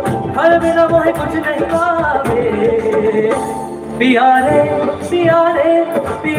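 A singer performing live with band accompaniment, heard over the concert's loudspeakers from among the audience. The sung melody bends and holds notes.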